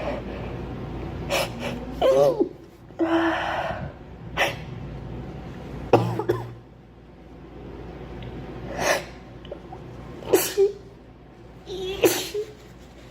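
A girl sneezing repeatedly: a run of about eight sharp sneezes, some voiced, spaced one to two seconds apart, with a longer breathy rush of air about three seconds in.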